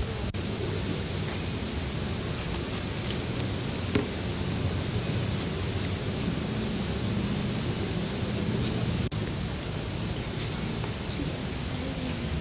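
A cricket chirping in a fast, even, high-pitched pulsing trill that cuts off abruptly about nine seconds in. Under it runs a steady low rumble of background noise.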